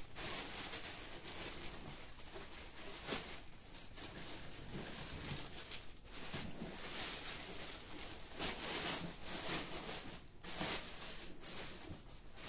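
Clear plastic bag crinkling and rustling in uneven spurts as hands pull it off a powered audio mixer.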